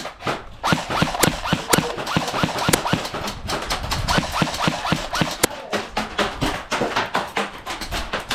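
Airsoft guns firing: a rapid, irregular stream of sharp cracks and clicks, several a second, with brief short whirs between shots.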